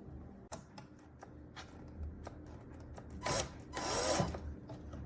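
Furniture panels being handled: a few light clicks and knocks, then two louder scraping slides about three to four seconds in, as a shelf is moved and set onto its metal shelf pins.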